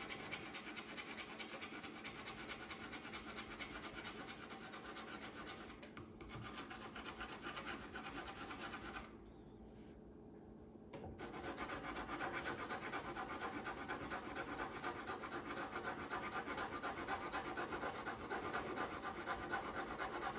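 Pencil lead scratching quickly back and forth on paper, shading in a solid block, with a pause of about two seconds near the middle when the pencil is lifted.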